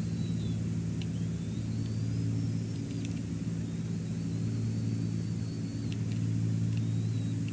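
A steady low mechanical hum runs throughout. Over it, a bald eagle chick gives three thin, high whining calls, each lasting a second or two. A few faint clicks sound in between.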